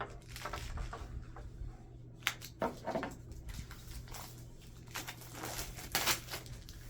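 Shrink-wrap plastic crinkling and rustling in irregular bursts as it is cut and pulled off, over a faint steady hum.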